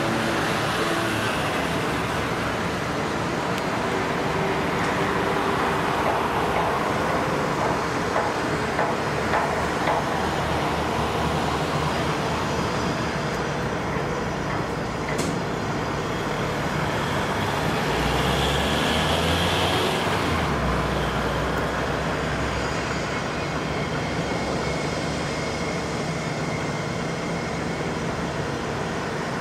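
Steady vehicle and traffic noise. A deeper engine hum rises for a few seconds about two-thirds of the way through.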